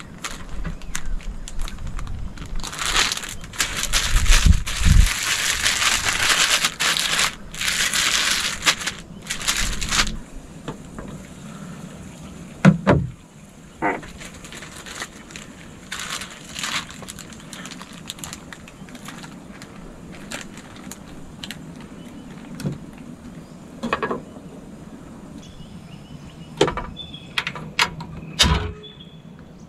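Plastic cooking bag crinkling and rustling in bursts as fish is sealed inside it, followed by scattered knocks and clinks of a cooking pot and its lid, one near the end as the lid is set on the pot.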